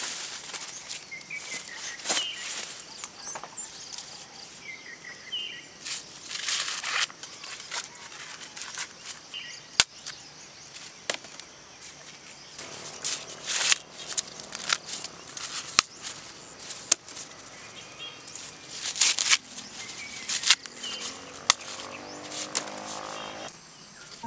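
Dry corn husks and leaves rustling and tearing in irregular bursts as ears of corn are husked by hand, with a few sharp snaps.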